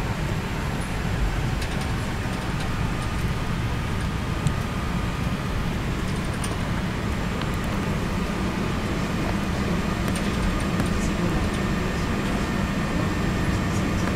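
Steady cabin noise inside an Airbus A380 on the ground before take-off: an even low rumble of the engines and air system, with a few faint ticks.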